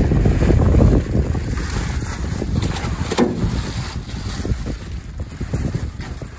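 Wind buffeting the microphone over choppy water, a heavy low rumble that eases after the first second. A brief splash about three seconds in, as the thrown cast net lands on the water.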